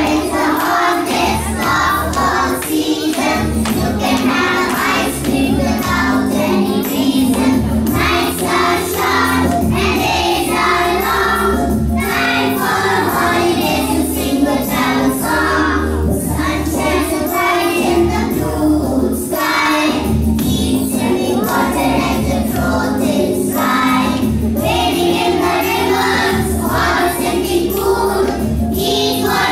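A children's choir singing a song together, with music accompaniment carrying a steady beat underneath.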